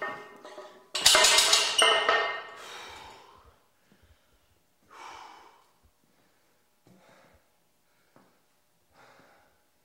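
A loud, sudden sound about a second in that fades over two to three seconds, then a person's slow, heavy, sighing exhales about every two seconds.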